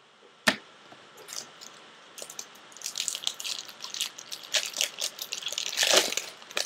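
A trading-card pack wrapper being torn open and crinkled. There is one sharp snap about half a second in, then a dense run of crackling that grows busier toward the end.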